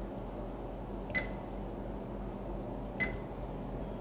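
Handheld Fluke digital multimeter beeping as its range button is pressed: two short high beeps, about a second in and again near three seconds, over a steady low background hum.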